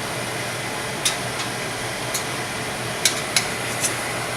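Six or so light, sharp clicks and taps at uneven moments from a kitchen utensil knocking against a pan while the chicken pieces are turned skin side up, over a steady background hum.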